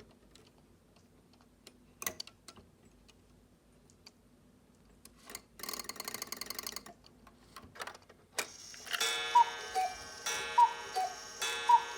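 Cuckoo clock: a brief rattle of the weight chain being drawn up, then near the end the cuckoo begins calling, a falling two-note whistle repeated about once a second, three calls in all.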